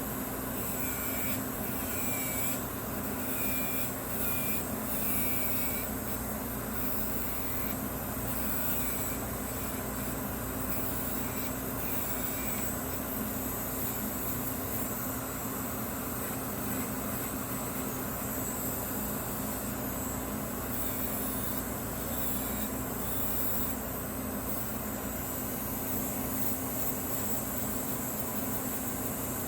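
Electric nail file (e-file) running steadily with a sanding bit, blending a nail tip into the broken natural nail. Its whine wavers briefly several times in the first dozen seconds.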